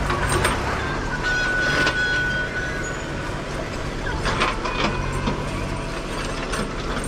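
JCB backhoe loader's diesel engine running steadily while the backhoe digs, with metallic clanks and rattles from the bucket and arm. A brief thin whine comes about a second in.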